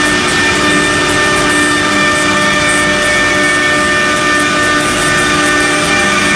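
A CNC router's 6 kW HSD spindle running and routing a particleboard panel, with dust extraction: a loud, steady machine noise with a constant whine of several pitches over a dense rushing noise.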